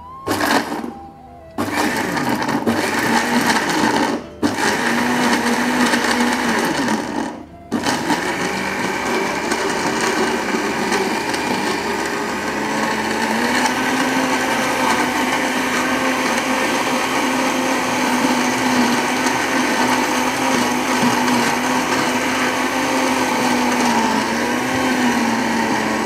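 Electric kitchen blender grinding a marinade spice paste. It is switched on and off in short runs three times during the first eight seconds, then runs continuously with a steady motor note.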